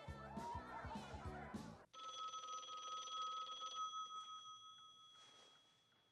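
Music plays and cuts off abruptly a little under two seconds in. A landline telephone's bell then rings once, strongly for about two seconds, and fades away as it rings out.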